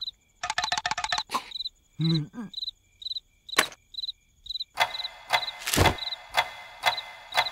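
Crickets chirping steadily, about two chirps a second, with cartoon sound effects over them: a quick run of clicks about half a second in, a short voice sound near two seconds, scattered knocks, and a heavier thud later on.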